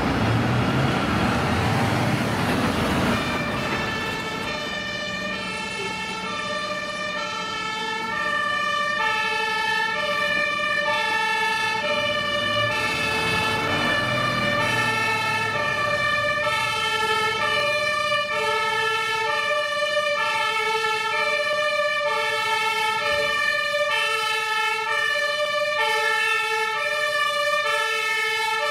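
German fire truck's two-tone siren (Martinshorn) sounding, switching steadily back and forth between two pitches. In the first few seconds a heavy truck's engine and tyres rumble past close by, before the siren takes over.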